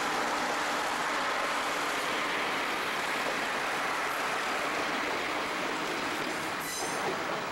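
Cream-and-red JNR passenger train passing close by, a steady, dense rumble and clatter of the cars going past. A brief high-pitched squeal rings out near the end.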